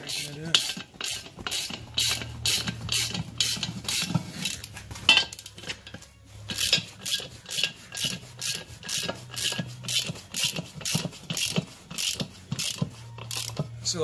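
Hand socket ratchet clicking in a steady run of about three clicks a second, with a short pause about halfway, as lug nuts are cranked down on the wheel studs to draw the hub back into a new brake drum.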